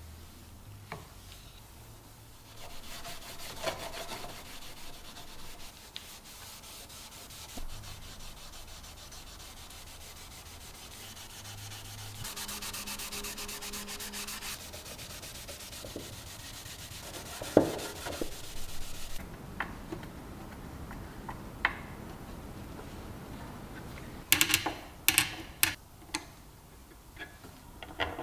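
A cloth pad rubbing a dark finish into a wooden board, a steady scrubbing hiss that grows louder for a couple of seconds midway. Near the end come a cluster of sharp clicks as small metal screws are handled on the wood.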